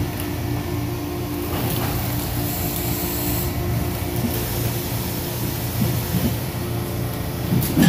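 Roll-fed thermoforming machine running: a steady mechanical hum with a couple of sharp knocks, about two seconds in and near the end.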